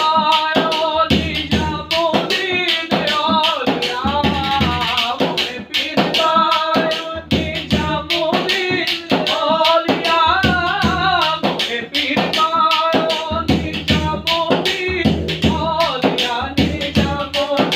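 Daff frame drum beating a fast, dense rhythm under a wavering melodic line, with no clear sung words.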